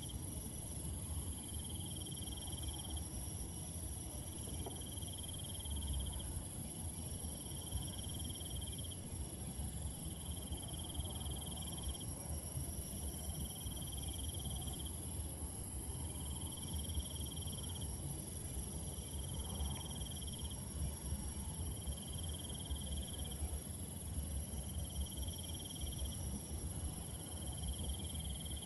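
Night insect chorus: a steady high-pitched trill, with other insects calling in bursts about a second long every two seconds or so. A low rumble sits underneath.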